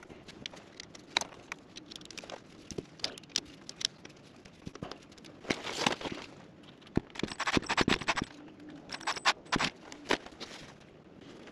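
Scattered clicks, rattles and scrapes of hands working a diesel fuel line and its small fittings under a caravan floor, with a denser flurry of rapid clicking and rustling a little past the middle.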